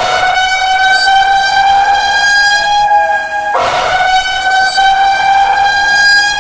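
Simulated emergency alert alarm: a loud, harsh horn tone held at one steady pitch in long blasts of about three and a half seconds, a new blast starting about halfway through.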